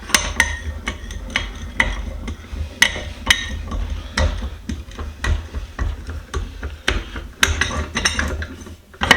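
Metal tools clinking and knocking against a Reed No. 24 utility vise as it is taken apart, in irregular sharp clicks, several a second, some with a short metallic ring.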